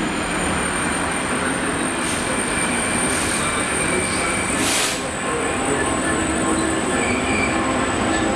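DB Cargo Class 66 diesel-electric locomotive with its two-stroke V12 diesel running as it draws a freight train of covered steel wagons past, with steady wheel and wagon rumble. A few short high hisses come between about two and five seconds in.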